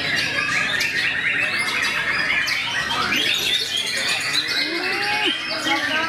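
Many caged songbirds singing at once, a dense mix of overlapping whistles and chirps, with a white-rumped shama among them.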